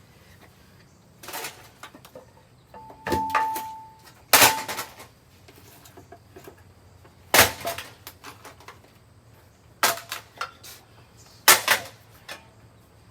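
About six hard strikes on a running ceiling fan, one to three seconds apart, as it is smashed. One strike about three seconds in leaves a metallic ring for about a second.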